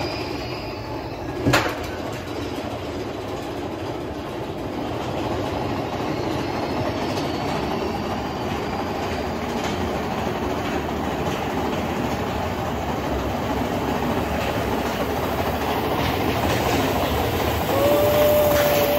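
Big Thunder Mountain Railroad mine-train roller coaster cars rumbling and rattling along the track, with one sharp knock about a second and a half in. Near the end a rider's long held yell rises over the ride noise.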